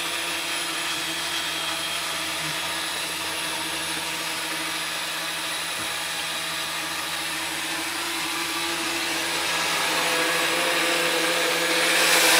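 Small countertop blender running steadily while it blends a pineapple smoothie, heard from outside through the caravan's wall and window. It makes a continuous motor whine that sounds like someone doing DIY work with a drill, and it gets louder over the last couple of seconds.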